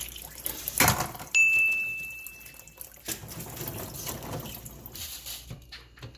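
Water running and splashing, with a sharp knock about a second in and a single steady high-pitched electronic beep lasting about a second and a half just after it.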